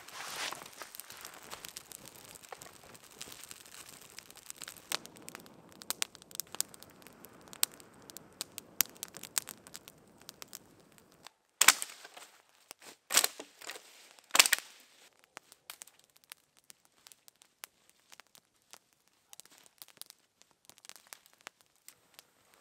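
Wood campfire crackling, a steady run of small pops, with three louder snaps about halfway through.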